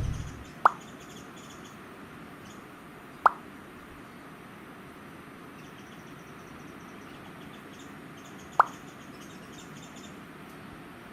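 A cat sneezing three times, each a short, sharp burst, the second about two and a half seconds after the first and the third about five seconds later.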